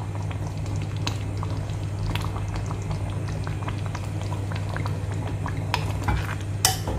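Thick butter chicken gravy simmering in a pan, bubbling with many small pops over a steady low hum, and one louder pop near the end.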